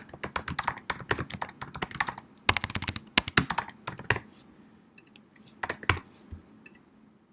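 Typing on a computer keyboard: a fast run of keystrokes for about the first four seconds, then a few scattered keys and a final pair of strokes about six seconds in.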